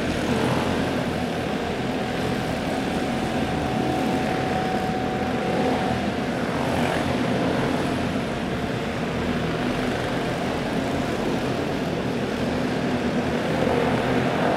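Several racing karts with box-stock Predator single-cylinder engines running laps inside an indoor arena: a steady, blended engine drone whose pitch swings up and down a few times as karts accelerate out of the turns.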